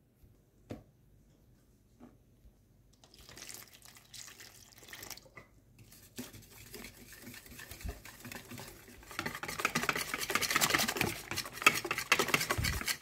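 Wire whisk stirring and beating pancake batter in a bowl. Soft scraping begins about three seconds in, then turns into fast, louder strokes of the whisk against the bowl for the last few seconds.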